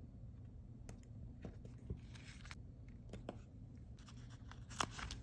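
Quiet handling of stickers with tweezers: light clicks and taps, a short rustle of sticker paper about two seconds in, and a sharper click near the end.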